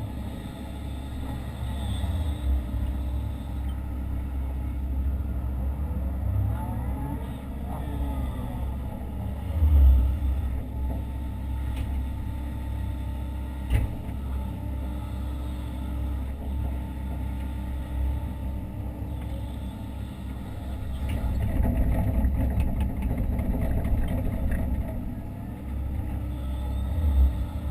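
Hitachi Zaxis 130 excavator's diesel engine running steadily, heard from inside the cab, with faint whines gliding up and down in pitch as the machine works. A heavy thump about ten seconds in and a sharp knock near fourteen seconds, and the machine grows louder for a few seconds past the twenty-second mark.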